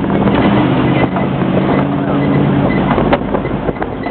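A safari tour truck's engine running steadily as it drives, with scattered knocks and rattles from the vehicle.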